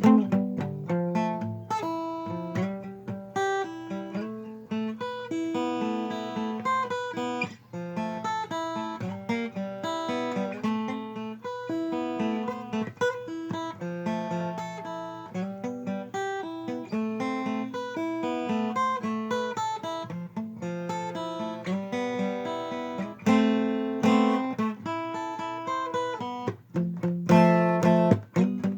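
Alvarez acoustic guitar played solo: a quick run of picked single notes and chords, with a few louder strummed chords near the end.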